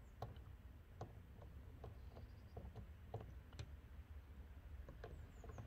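Faint, irregular clicks of a hand screwdriver turning a screw into a car door's plastic trim panel.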